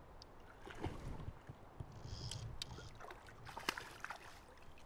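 Water splashing as a hooked wild brown trout thrashes at the surface while being played on a fly rod: a run of irregular splashes, the sharpest one near the end.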